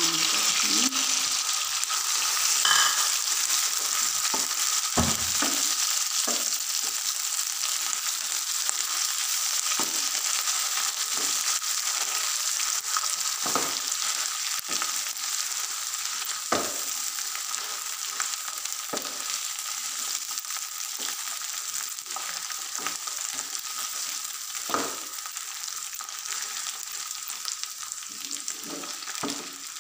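Sarson ka saag (mustard greens) sizzling as it fries in hot desi ghee with garlic and ginger: a steady frying hiss that slowly eases as the greens go in and are worked through. A spatula scrapes and taps against the nonstick pan now and then as it is stirred.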